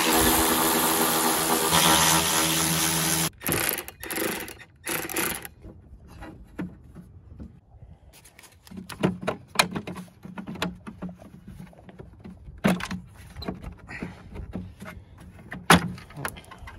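Cordless electric ratchet running steadily for about three seconds, backing out a cowl bolt, then a few short bursts. After that, scattered clicks and knocks as the cowl panel is worked loose and pulled off by hand.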